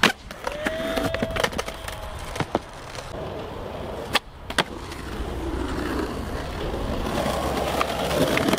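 Skateboard wheels rolling over concrete and asphalt, broken by a few sharp clacks of the board against the ground, the loudest about four seconds in. The rolling grows louder toward the end.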